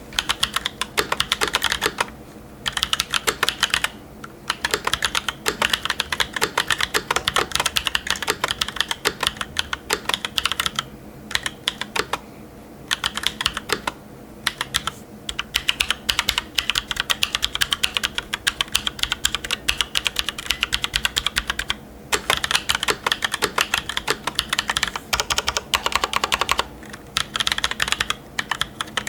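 Typing on a custom mechanical keyboard with Holy Red Panda tactile switches (Halo stems in YOK Panda housings) and GMK Space Cadet keycaps in a TKC1800 case. Fast bursts of sharp clicks come from the keys bottoming out, not from a click bar, and there are brief pauses between runs.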